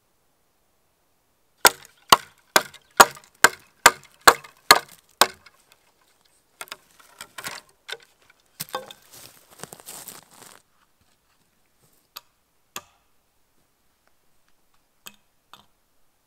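Wood being chopped: nine sharp strikes about two a second, followed by a few seconds of softer crackling and rustling of wood and a few single knocks near the end.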